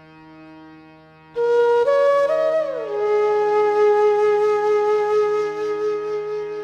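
Background flute music over a steady drone. The flute comes in loudly about a second and a half in, plays a few notes rising in steps, slides down, and settles on a long held note.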